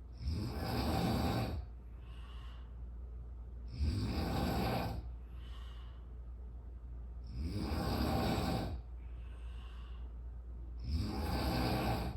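A person snoring loudly: four long rasping snores about three and a half seconds apart, each lasting about a second and a half, with fainter breaths between them.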